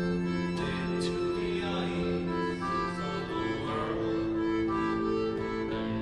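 Live band playing an instrumental passage of indie-folk music: several long, overlapping held notes that shift slowly from chord to chord, with a few light strikes and no singing.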